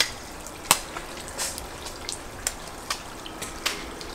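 A knife working through a whole raw salmon on a wet wooden table: irregular sharp wet clicks and short scrapes, about six in four seconds.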